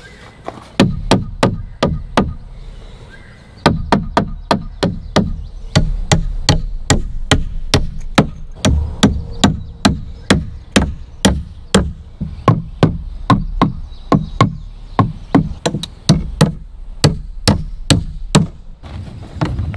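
Claw hammer driving nails into 2x4 wooden framing: sharp, repeated blows, a brief run, a pause of a second or two, then steady strikes at about three a second.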